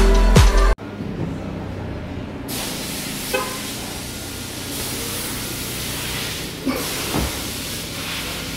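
Music cuts off just under a second in, leaving a Ferrari SF90 Stradale idling: a steady low hum with a hiss that comes in about two and a half seconds in, and a few light knocks.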